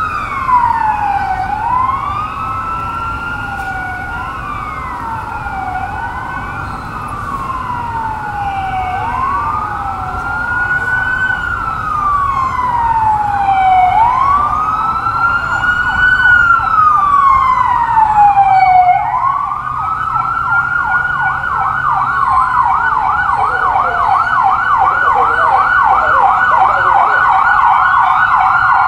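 Several police escort sirens wailing together, their slow rising and falling sweeps overlapping. A little over two-thirds of the way through, they switch to a fast yelp.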